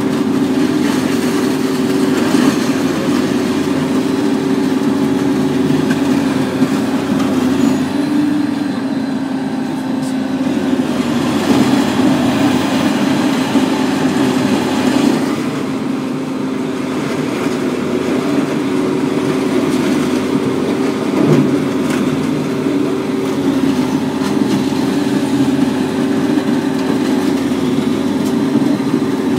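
Hammel VB 950 DK pre-shredder running under load: its engine keeps up a steady low hum while the shredder shafts grind through scrap in the hopper, with a noisy crunching that swells and eases and an occasional sharp knock.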